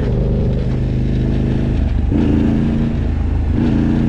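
Yamaha MT-07 689 cc parallel-twin engine, swapped into a Yamaha Raptor quad, running under throttle while the quad is ridden. Its pitch changes about halfway through and again near the end.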